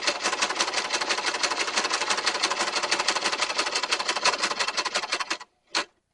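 Inexpensive sewing machine stitching Velcro onto a leather belt strap, running fast with about ten needle strokes a second. It stops about five and a half seconds in, then gives one short extra burst.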